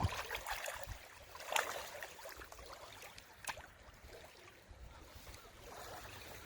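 Sea water lapping, with wind noise and a few short, sharp splashes or knocks about a second and a half and three and a half seconds in.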